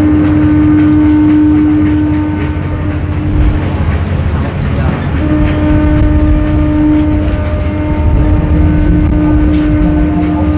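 Ship's horn sounding two long, steady blasts, the second starting about a second and a half after the first ends, over a low rumble.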